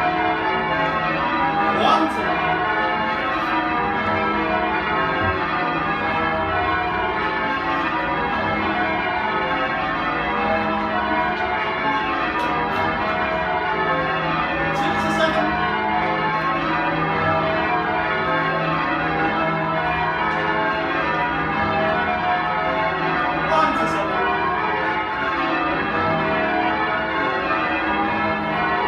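Change ringing on a ring of ten church bells with a 17 cwt tenor in E: the bells strike one after another in an unbroken, overlapping pattern. A few short clicks sound over it.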